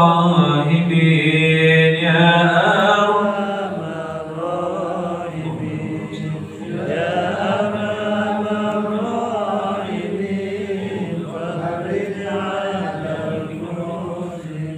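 A congregation chanting an Arabic prayer together in unison: many voices in one long, drawn-out recitation.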